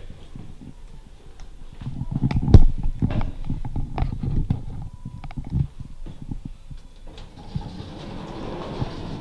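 Elevator doors sliding shut, then a run of knocks and rattles as the car sets off, the loudest a heavy thump about two and a half seconds in. A steady hiss builds near the end as the car travels.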